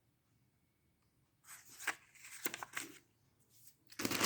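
Paper being handled: a few short rustles and light handling noises from about a second and a half in, then louder crinkling near the end.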